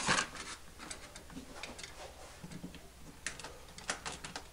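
A few scattered light clicks and taps of thin metal push rods being picked up and handled on a workbench.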